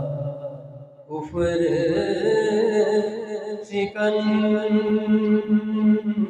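Man's unaccompanied voice chanting an Urdu naat in long held notes. The line fades about a second in and a new phrase begins, held to the end.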